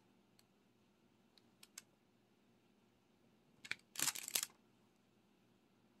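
Faint small plastic clicks of diamond painting work, then a short clattering rattle of the resin drills and tray about four seconds in.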